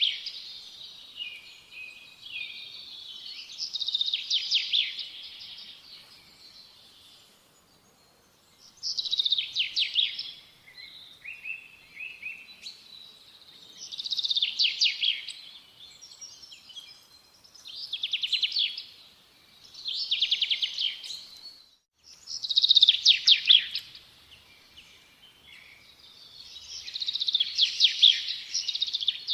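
A songbird singing: short phrases of fast, high trills and chirps, each a second or two long, repeated every few seconds with brief pauses between.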